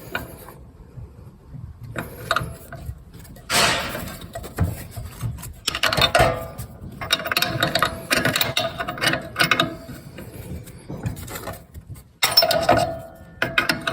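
A metal spanner on the wheel-adjuster nut of a Pallmann Cobra belt sander, loosening it: metal-on-metal clinking and scraping in several short bursts with pauses between them.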